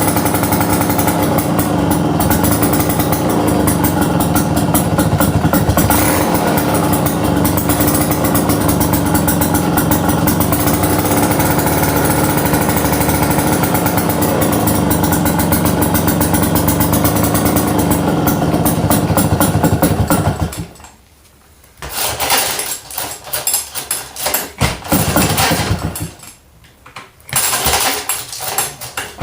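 McCulloch Model 5-49 two-man chainsaw's 130 cc two-stroke engine running steadily and loudly, then cutting out about twenty seconds in, followed by short uneven bursts of running separated by quiet gaps.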